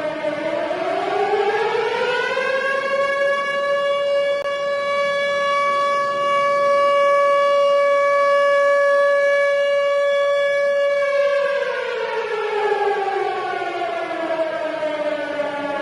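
Outdoor tornado warning siren sounding its wail. The pitch rises over the first few seconds, holds on one steady note for about eight seconds, then slowly falls away near the end.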